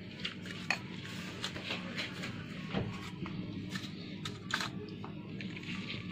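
Scattered light clicks and taps of kitchen handling on a counter, a dozen or so spread unevenly, over a steady low hum.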